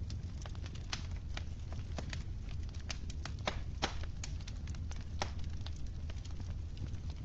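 Wood fire in a fireplace crackling, with irregular sharp pops and snaps, several a second, over a steady low rumble.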